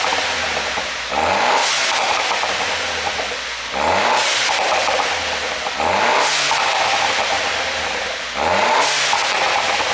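Mini Cooper S (R56) 1.6-litre turbocharged four-cylinder blipped repeatedly, four revs in a row, each followed on lift-off by a burst of exhaust pops and crackles from its tuned ECU map.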